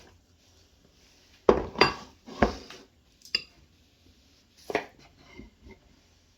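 Kitchen utensils knocking and clinking against dishes about five times, short separate knocks with quiet between, as food is handled in a kitchen.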